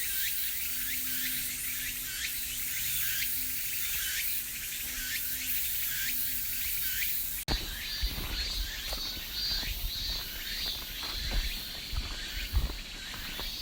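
Cicadas calling: a call repeated about every half second over a dense high hiss of many insects. About seven and a half seconds in the sound cuts to a pulsing high buzz, with scattered low knocks over it.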